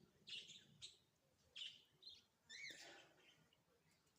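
Faint chirping of small birds: a handful of short, high calls over about three seconds, one of them a quick rising-and-falling note.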